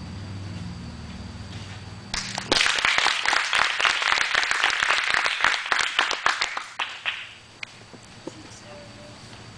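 A small crowd applauding with many hand claps, starting about two seconds in and dying away after about five seconds.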